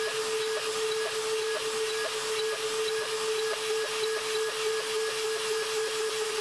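Mafell FM 1000 router spindle on a DIY CNC machine milling 5083 aluminium with an end mill: a steady high whine over a constant hiss, with faint ticks about twice a second.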